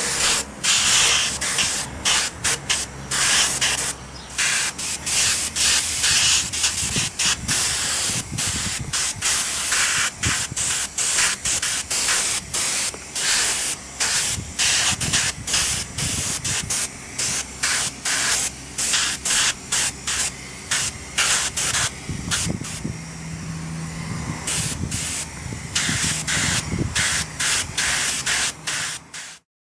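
Airbrush spraying paint in many short on-off bursts of hiss, with a low steady hum underneath.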